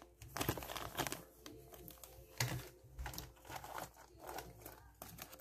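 Clear plastic parts bag crinkling as it is handled, in irregular stop-start rustles.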